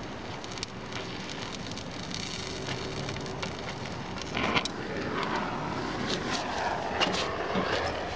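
Oxyacetylene torch flame hissing steadily while welding a car's steel running board, with many small crackles and pops from the weld puddle and filler rod. A louder burst comes about halfway through.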